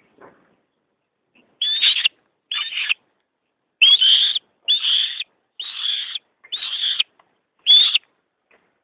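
Female crested goshawk calling: seven high calls of about half a second each, nearly one a second, starting about one and a half seconds in.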